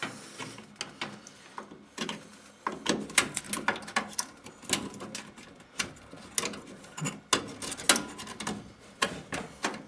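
Irregular light clicks, taps and plastic rattles of hands handling a DDR3 RAM stick and the parts of a computer case around its slot.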